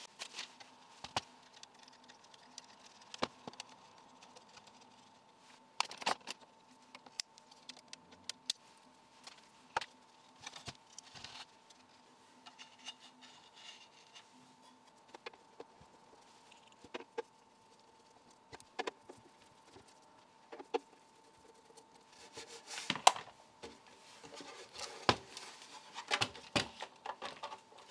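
Cable ties being pulled tight and trimmed on wiring inside a bench power supply's metal case, heard as scattered small clicks and rattles. Near the end come louder knocks of the sheet-metal lid being fitted back on and the unit being handled.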